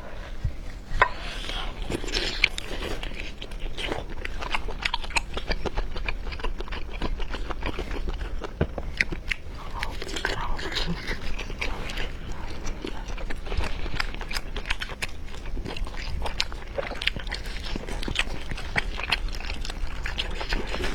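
A person chewing and biting food close to the microphone: a dense run of quick, irregular mouth clicks and smacks.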